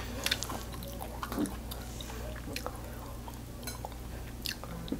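Chewing a mouthful of kimchi bokkeum (stir-fried kimchi) with rice, with soft wet mouth clicks now and then.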